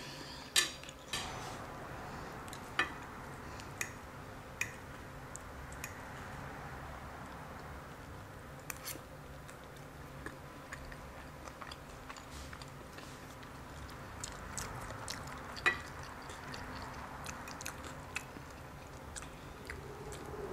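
Close-miked chewing of loaded carne asada fries, with sharp clicks now and then as a fork picks at the food in glass dishes.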